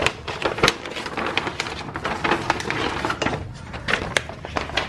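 Large paper poster rustling and crinkling as it is handled by hand, with many sharp crackles.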